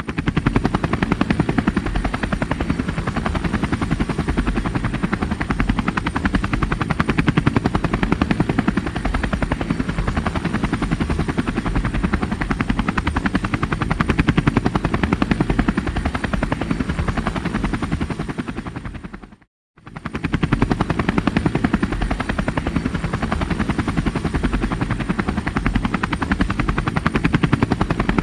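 Helicopter rotor blades chopping in a fast, even rhythm, with a steady high whine above it. A little after 19 seconds in it fades out to a brief silence, then starts again at full level.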